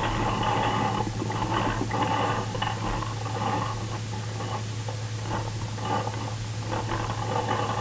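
Steady low electrical hum under a hiss, with a few faint knocks and rustles.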